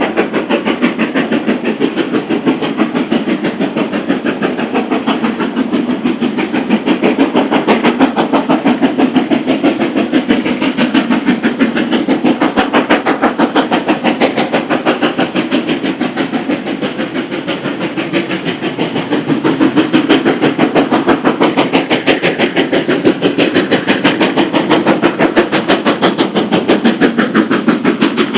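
Steam locomotive working hard on a steep climb, its exhaust a fast, steady beat, fading a little midway and then growing louder again.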